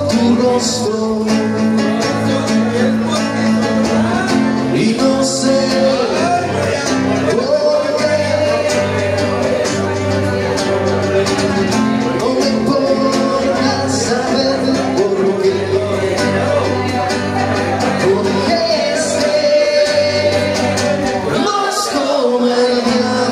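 Live music: a man singing to his own strummed acoustic guitar through a microphone.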